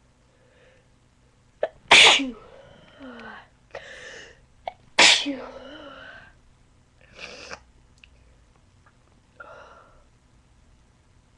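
A person with a cold and allergies sneezing loudly twice, about three seconds apart, each sneeze led by a sharp intake. Quieter breathy sounds come between and after the sneezes.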